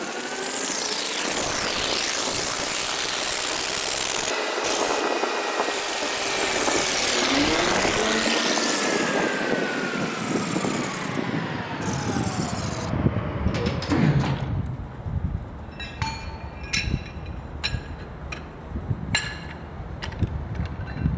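Power tool working the metal bushing of an axle spindle with a loud, steady grinding noise, its pitch sweeping up and down, then winding down with a falling tone about two-thirds in. After that come sharp ringing metallic clinks, several in a row, from steel parts being tapped or handled.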